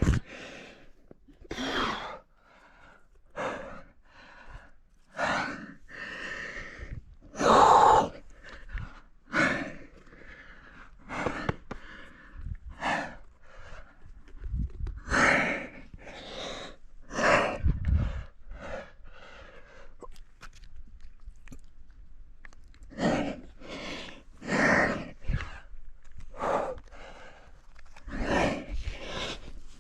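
Rock climber breathing hard with effort, sharp exhalations every second or so, close to the head-mounted camera, with a couple of quieter pauses.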